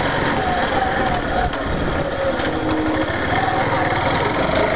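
Yamaha Factor 150 motorcycle's single-cylinder engine running steadily as the bike is ridden.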